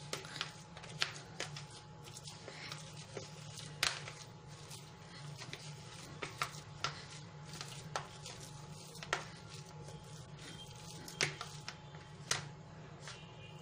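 Wooden potato masher pressing boiled potatoes and peas in a bowl, giving irregular soft knocks about once a second as it bottoms out, over a steady low hum.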